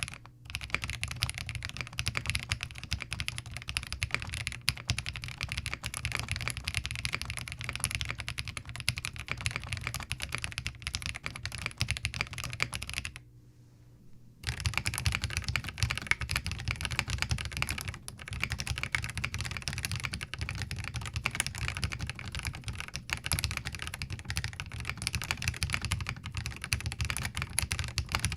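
Continuous typing on a Zoom TKL mechanical keyboard fitted with Novelkeys Cream linear switches: a dense, steady patter of keystrokes, broken by a pause of about a second midway.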